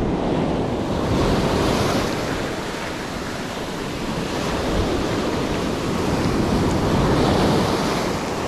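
Ocean surf breaking and washing up the beach, swelling twice as waves run in, with wind buffeting the microphone.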